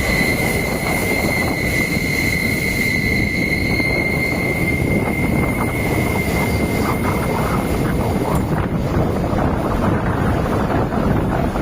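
Train running on the track: a steady rumble of wheels and carriage, with a high, thin, steady whine that fades out about eight seconds in.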